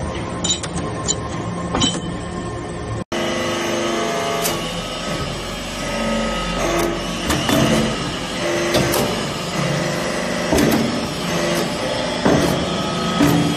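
TCM hydraulic metal-chip briquetting press running: a steady hydraulic drone with shifting tones and scattered knocks and clicks from the ram and moulds. Metallic clinks of pressed swarf briquettes come in the first few seconds, before a brief dropout.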